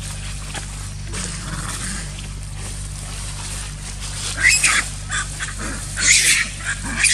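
Macaques fighting in dry leaves: a steady low hum at first, then loud, high-pitched screams and squeals in short bursts starting about four seconds in.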